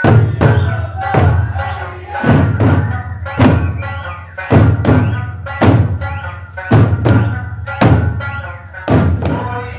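Eisa drummers striking large Okinawan barrel drums (ōdaiko) in unison, a heavy booming hit about once a second, over Okinawan folk music with a melody line. The drumming comes in loudly at once at the start.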